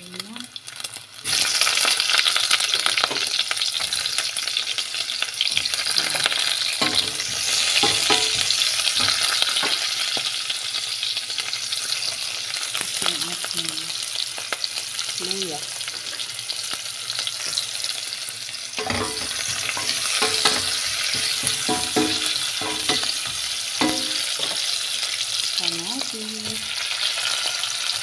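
Pork and sliced onion, garlic and ginger frying in hot rendered pork fat in a stainless steel pot: a steady loud sizzle that jumps up suddenly about a second in, as the aromatics hit the fat, with scattered knocks of stirring against the pot.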